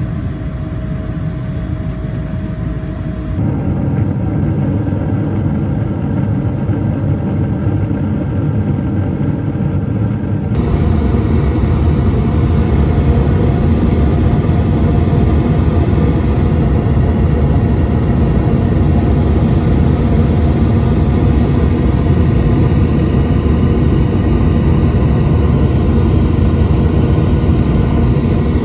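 Gas furnace running: a steady low rumble of burner flames and fans, stepping up in loudness about three seconds in and again about ten seconds in. The burner flames are rolling out instead of staying contained, a pattern that can point to airflow problems or a failing heat exchanger.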